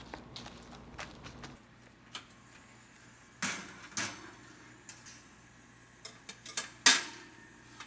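Metal cookware knocking and clanking against wire oven racks as a skillet and a metal plate are set in under the broiler: a few light clicks first, then several sharp knocks, the loudest near the end.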